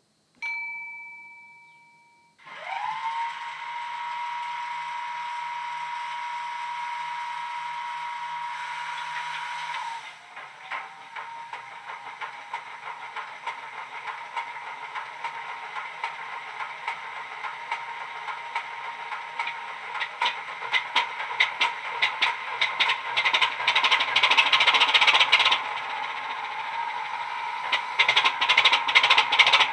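DCC sound decoder playing a recorded British Rail Class 25 diesel through two small EM1 speaker drivers inside an OO gauge model locomotive. A short ringing tone fades away, then a steady whine holds for about seven seconds and cuts off. It is followed by an uneven clattering engine beat that grows louder, as in a start-up sequence.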